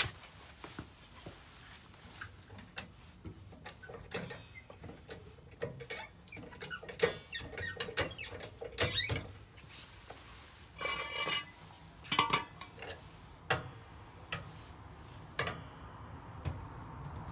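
Ford Fiesta XR2i being let down off a trolley jack: irregular clicks and scrapes from the jack and its handle, with short squeaks and creaks about 9, 11 and 12 seconds in as the car settles onto its wheels.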